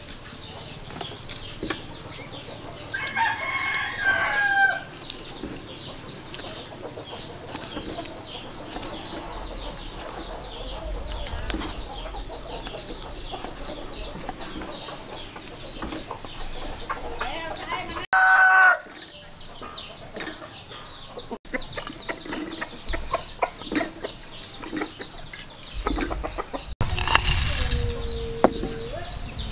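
Kitchen knife chopping sea snail meat on a wooden cutting board, with chickens clucking throughout and one loud, short chicken call about two-thirds of the way through.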